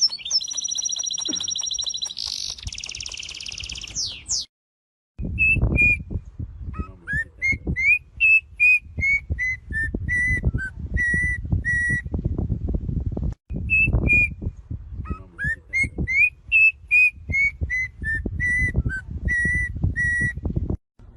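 Bird calls: first a high, rapidly trilled call, then after a short break a song of clear whistled notes, a few rising slurs followed by a run of evenly repeated notes, given twice. A low rumble sits under the song.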